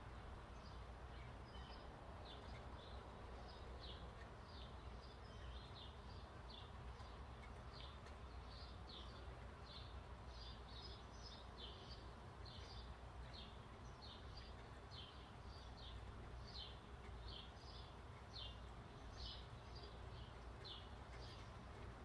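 Small birds chirping: short, high, downward notes, about two a second, over a faint, steady low background rumble.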